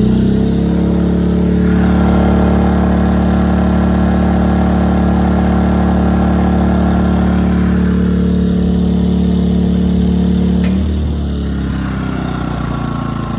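Harbor Freight Predator 2000 inverter generator's small four-stroke engine running under the load of an electric heater, revved up and holding a steady high speed. About eleven seconds in its engine speed and loudness drop back.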